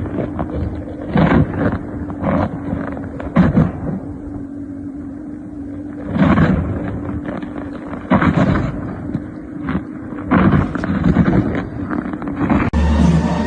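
A steady low hum under repeated loud thumps and gusts of noise. It cuts off abruptly near the end and music with a steady beat takes over.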